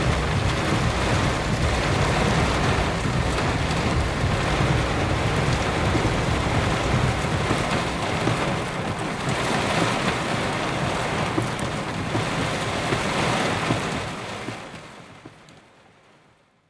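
Heavy rain pouring down, with a steady low rumble underneath; the sound fades out over the last couple of seconds.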